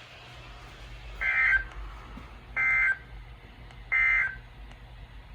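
Three short bursts of warbling two-tone data signal, about a second and a half apart, over low radio hiss: the Emergency Alert System (SAME) end-of-message code that closes an alert broadcast on NOAA Weather Radio.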